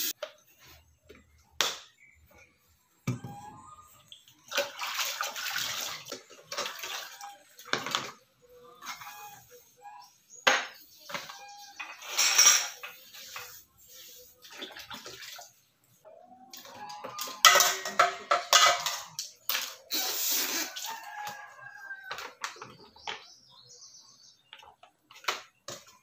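Plastic dishes being washed and rinsed by hand at a kitchen sink: water splashing in irregular bursts, with knocks of plastic containers. A rooster crows in the background several times.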